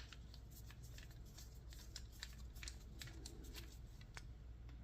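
Faint, irregular small clicks and ticks of a screw being turned out of a Federal 200A aluminium padlock body with a hand tool, several clicks a second.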